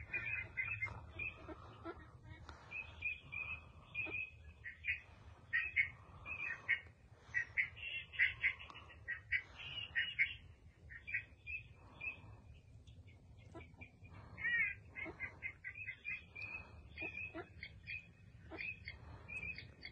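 Ducks calling: many short, repeated calls that come in quick runs, some bending up and down in pitch, over a low steady rumble.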